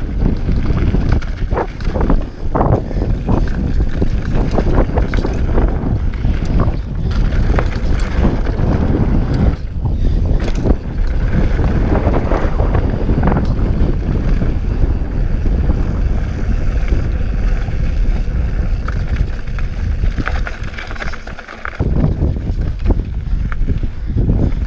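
Scott Voltage 720 mountain bike running fast down a dry, rocky dirt trail: heavy wind rumble on the camera microphone, with tyres on loose dirt and gravel and frequent knocks and rattles from the bike over bumps. The wind rumble eases briefly near the end.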